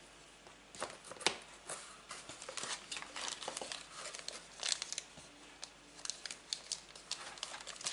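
Clear plastic packaging bag crinkling and rustling as hands handle it, in irregular crackles.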